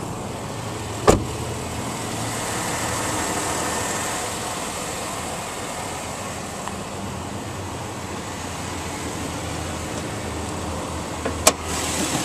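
A 2011 Jeep Grand Cherokee's 3.6-litre Pentastar V6 idling steadily. Two sharp knocks cut through it, one about a second in and one near the end.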